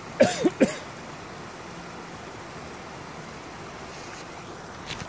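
Steady rush of a small woodland stream tumbling over rocks in a little waterfall. Near the start come two or three short, loud calls that each drop quickly in pitch.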